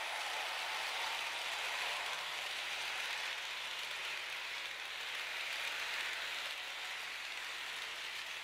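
H0 model train coaches rolling along the track, a steady hiss of wheels on rail that eases off slightly as the last coach moves away.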